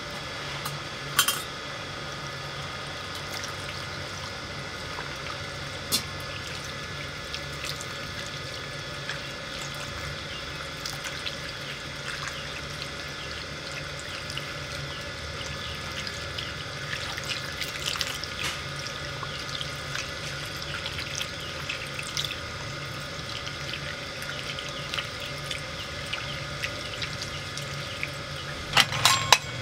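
Water poured in a thin stream into a wok of snails, splashing and trickling over the shells with small scattered ticks. Near the end, a quick run of sharp metallic clinks.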